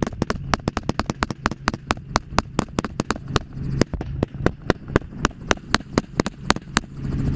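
Rapid gunfire from a firearm shooting out of a helicopter's open door, the shots coming several a second and stopping shortly before the end. The helicopter's rotor and engine hum runs steadily underneath.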